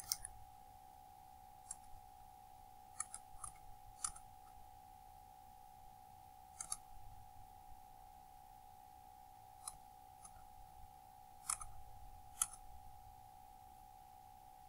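Computer mouse clicking: about a dozen short, sharp clicks, some in quick pairs, spread unevenly, over a faint steady high hum.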